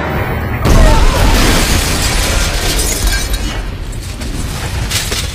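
A bomb explodes: a sudden, loud, deep blast about half a second in that rumbles and slowly dies away, with a further crackling burst near the end.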